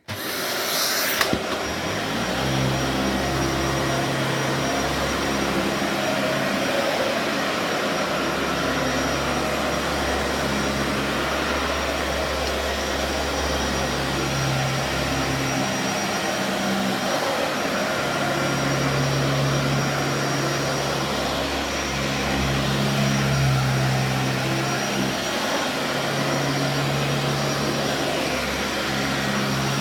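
Dyson DC40 Animal bagless upright vacuum cleaner switched on and running while vacuuming carpet, with a steady high whine over a rushing airflow. A lower hum swells and fades every few seconds.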